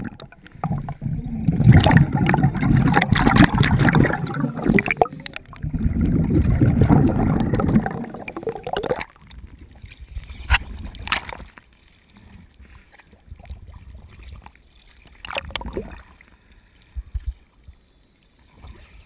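Sea water sloshing and gurgling around an action camera at the waterline in choppy sea. It is loud and churning for the first nine seconds or so, then drops to quieter lapping with a few sharp splashes.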